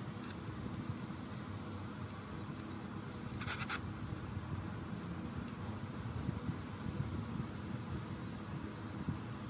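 Outdoor background of high, rapid insect chirping over a steady low hum, with a short rustling or scraping noise about three and a half seconds in.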